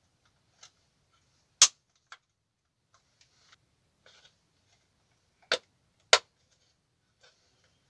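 Plastic cab parts of a WPL B-24 GAZ-66 RC model truck being snapped together by hand. There are three sharp clicks, one about a second and a half in and two close together around six seconds, with faint small handling clicks between them.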